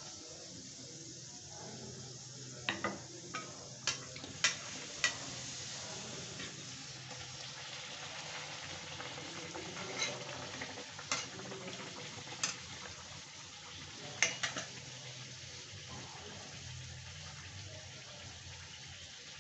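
Whole-wheat puri deep-frying in hot oil in a kadhai, a steady sizzle. A metal slotted spatula taps and scrapes against the pan in a few short clusters of clicks while the puri is pressed and turned.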